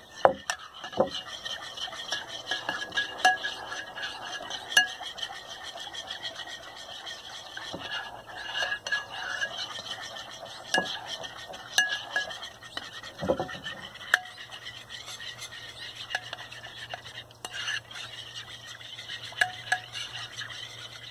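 Metal spoon stirring a thin, milky slime mixture of glue, water and baking soda in a bowl, clinking and scraping against the sides at irregular intervals.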